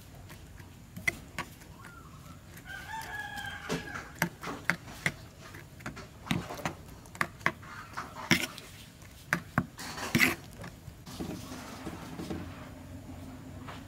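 Metal spoon clinking and scraping against a bowl while mixing raw egg, minced pork and onion, with sharp taps throughout. A chicken calls once, about three seconds in.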